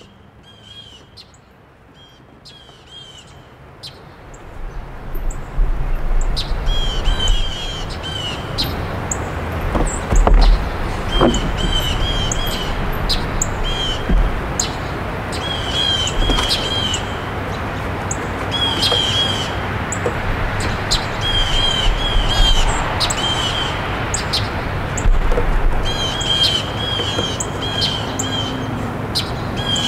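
Small birds chirping in short runs of three or four quick notes, repeated again and again. Behind them is a rushing background noise that swells about five seconds in and then stays.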